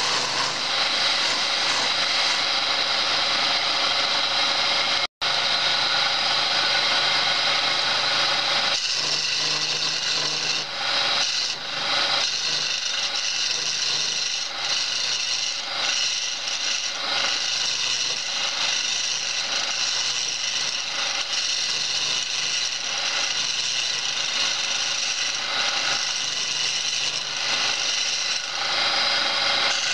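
Homemade wood lathe running while a hand turning tool cuts a spinning wooden spindle: a steady scraping, shaving noise over a faint motor hum. The sound drops out for an instant about five seconds in, and from about nine seconds on the cutting turns rougher and more uneven.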